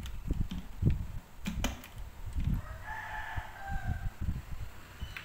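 A rooster crows once, about three seconds in, a call of about a second that falls in pitch at the end. Before it come knocks and a couple of sharp clicks from plastic bottles being handled.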